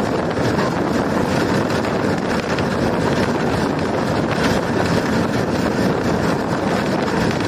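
PHA-20 diesel locomotive running at speed: a loud, steady rumble of engine and train, mixed with wind rushing over the microphone.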